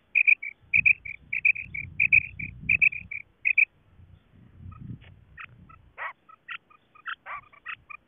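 Female common quail (batair) calling, as used to lure quail to a net. Short, high notes come in quick groups of three or four for about the first four seconds, then sparser, scattered notes follow.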